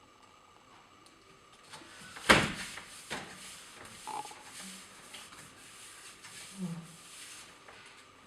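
A sharp knock about two seconds in, then a few lighter knocks and handling noise, as an acrylic panel is lined up and pressed onto a kitchen drawer front.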